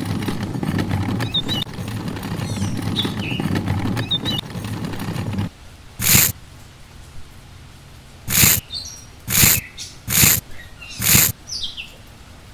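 Gravel and sand rustling steadily under a hand for about five seconds, stopping abruptly. Then come five short scrapes of a miniature metal hoe through dry cement and sand, about a second apart. Birds chirp faintly in the background.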